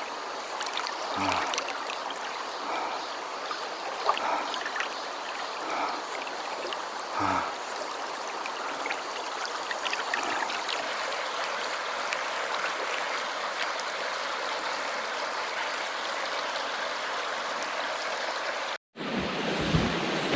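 Mountain valley stream rushing steadily over rocks, with a few short vocal sounds from a person in the water in the first seven seconds. The sound cuts out abruptly near the end and gives way to a different rush of water and wind.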